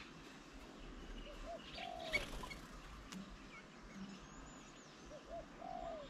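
A dove cooing twice, each phrase two short low notes followed by a longer falling coo, about four seconds apart. Faint high chirps from small birds come between the phrases, and a single sharp click sounds about two seconds in.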